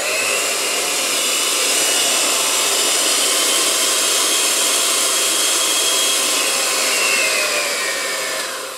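Electric hand mixer running steadily with a high motor whine, its beaters mixing soft margarine, sugar and eggs into cake batter. Near the end the whine falls in pitch as the motor winds down.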